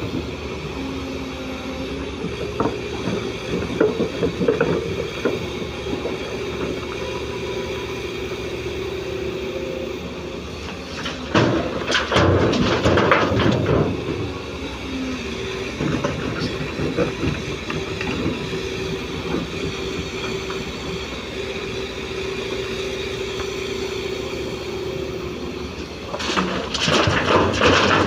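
Komatsu PC205 hydraulic excavator's diesel engine running steadily under load, with a held whine from the hydraulics as the arm works. Twice, about a third of the way in and near the end, a loud rough rumble of a bucketful of murrum being dumped into the tipper's steel body.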